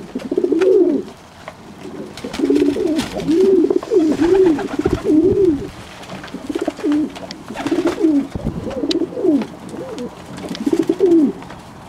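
Domestic pigeons cooing over and over, each coo an arched note that rises and falls in pitch, coming in runs with short breaks.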